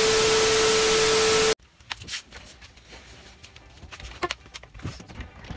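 Loud TV-static hiss with a steady tone under it, a glitch transition sound effect that cuts off suddenly about a second and a half in. After it come quiet scattered knocks and rustles as people move on a bed.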